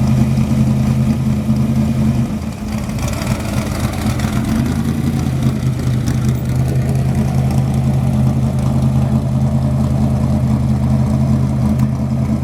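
Classic car engine running steadily at idle, holding an even pitch with a slight dip about two seconds in.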